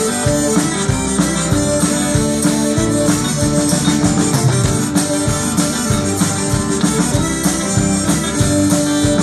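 Live country-rock band playing an instrumental passage, with no singing: acoustic and electric guitars, bass and accordion over a steady beat.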